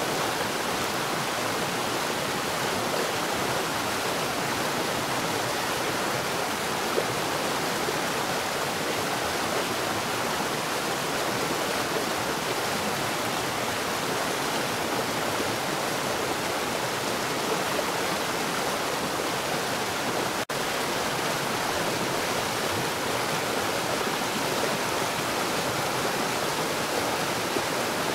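Water pouring down fast underground: a steady rush, broken once for a split second about twenty seconds in.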